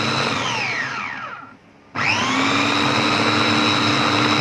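Electric food processor grinding sesame, flour and oil into tahini paste. Its motor whine drops in pitch as it is switched off about half a second in, goes briefly quiet, then cuts back in about two seconds in and spins back up to a steady run.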